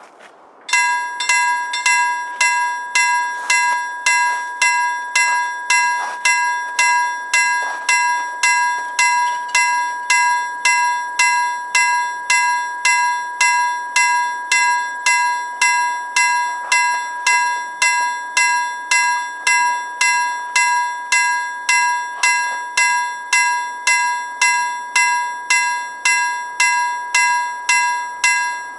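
Level crossing warning bell starting suddenly under a second in and ringing on in an even, rapid rhythm of strikes over a steady ringing tone: the crossing warning of an approaching train.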